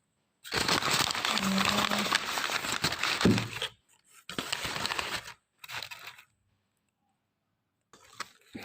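Plastic packaging crinkling and tearing as an item is unwrapped by hand: about three seconds of steady rustling, then two shorter bursts.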